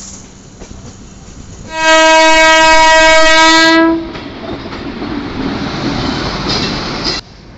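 An oncoming Indian Railways electric locomotive sounds one long, steady horn blast of about two seconds, then the locomotive and its train rush and rattle past on the next track. The sound cuts off suddenly near the end.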